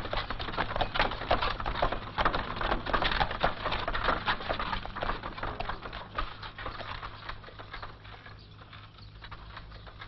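Horse's hooves clip-clopping amid a rapid clatter of knocks, dying away over the last few seconds.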